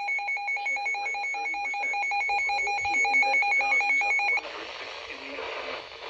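Electronic warbling tone, a steady lower tone under a higher one that flips rapidly between two pitches, cutting off suddenly about four and a half seconds in and leaving a steady hiss.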